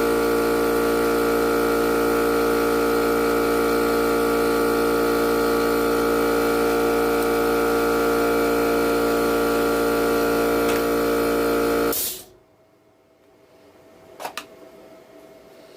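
Small electric motor, such as a power tool's, running at one steady pitch with a continuous whine, then cutting off suddenly about twelve seconds in; a couple of faint clicks follow.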